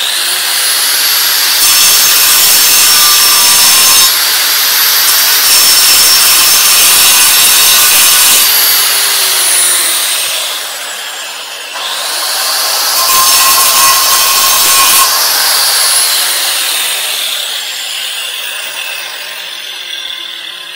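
Hikoki angle grinder starting up with a high whine, its disc grinding into a concrete paving slab in loud gritty stretches. About eight seconds in it winds down with a falling whine. It is started again near twelve seconds, cuts for a couple of seconds more, then spins down slowly.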